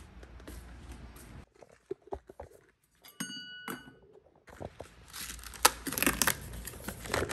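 Cardboard sleeve of Nespresso coffee capsules being torn open by hand: a dense papery tearing and crinkling over the last two seconds or so. Before it, scattered light handling clicks and a short ringing clink about three seconds in.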